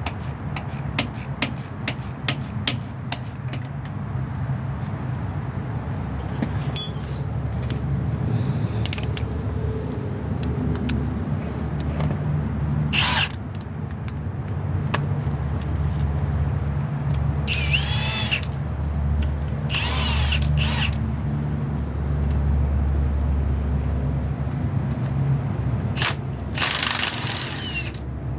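Tools working on the bolts of a driveshaft being removed to replace its worn center support bearing: quick ratchet-like clicking at first, then several short bursts of about a second from a power tool, over a steady low hum.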